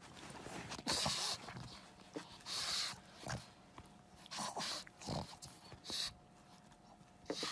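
A pug's short, noisy nasal breaths, coming in about six separate bursts a second or so apart.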